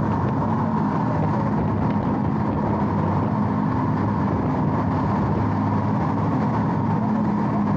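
Jet boat engine running at a steady speed: a continuous low drone with an even hiss over it and no revving.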